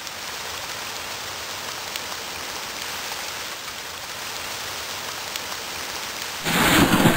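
Steady rain, an even hiss of rainfall. Near the end a much louder sound cuts in over it.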